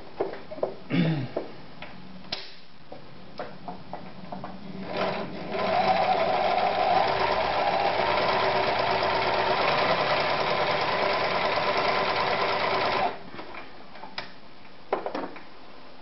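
Privileg Super Automatik 5021 electric household sewing machine running steadily for about seven seconds, stitching through fabric. Short handling clicks and knocks come before and after the run.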